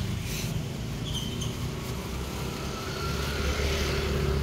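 Street traffic: a motor vehicle's engine running close by, its low hum getting louder about three seconds in.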